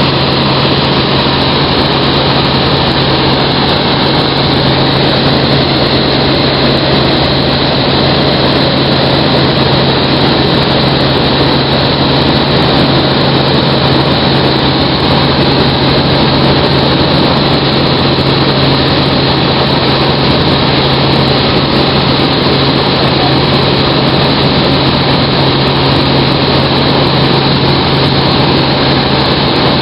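Helicopter engine and main rotor running steadily in cruise flight, heard from inside the cabin: a loud, unchanging drone with a steady low hum.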